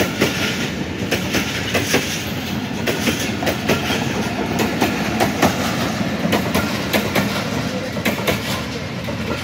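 1-Up Khyber Mail passenger coaches passing at speed, with a continuous rumbling wheel-and-track sound and a repeated clickety-clack as the wheels cross the rail joints.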